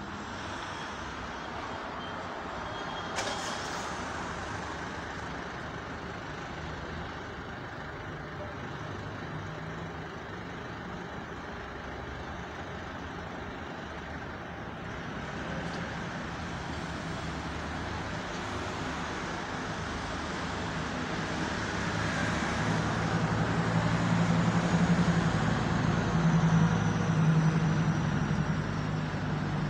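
Steady road-traffic noise with a motor vehicle's engine running, growing louder over the last few seconds. There is a sharp click about three seconds in.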